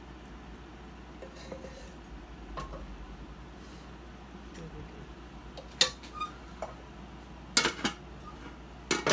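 Metal spoon scraping and clinking against a wok and a ceramic serving bowl while masala is spooned over cooked mutton chops. A few sharp clinks come about six seconds in, then a louder clatter near the end as a lid goes onto the wok.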